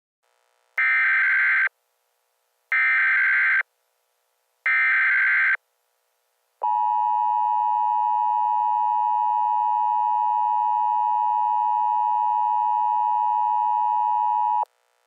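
Emergency Alert System SAME header: three bursts of digital data tones, each about a second long and a second apart, followed by the steady two-tone attention signal held for about eight seconds, signalling the start of an emergency alert broadcast.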